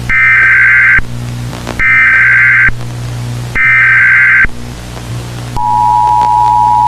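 Emergency Alert System header: three short bursts of screeching data tones, then, about 5.6 s in, the steady two-tone EAS attention signal starts. All of it plays over a low hum.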